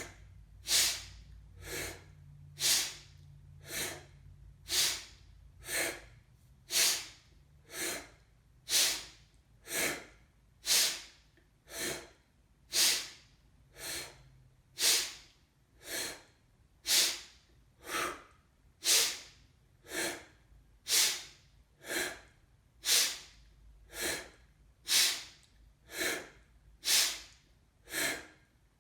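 A person doing a forceful rhythmic yoga breath, inhaling quickly through an O-shaped mouth and exhaling powerfully through crunched nostrils. There is one sharp breath about every second, louder and softer strokes alternating.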